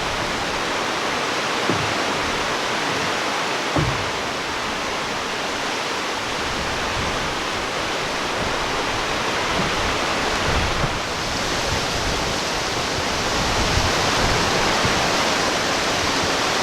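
A steady, even rushing noise with a few faint low bumps.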